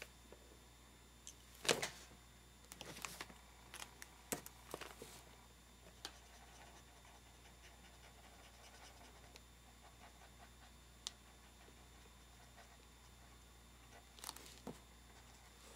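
Quiet handling of markers while colouring on paper: a few sharp clicks and taps in the first five seconds, one more later and two near the end, with faint scratching of a marker nib on paper in between.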